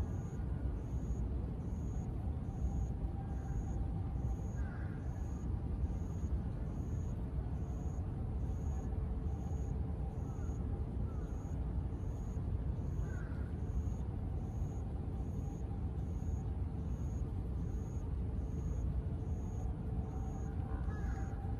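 Steady low rumble of distant city traffic around an urban park, with a faint steady hum. A few short bird chirps come through, about five, thirteen and twenty-one seconds in, over a faint high pulsing that repeats about three times every two seconds.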